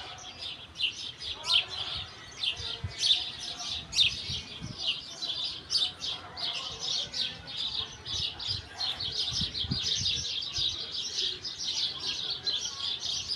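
Small birds chirping in a continuous, rapid chatter of short high notes, several a second, like a flock calling together.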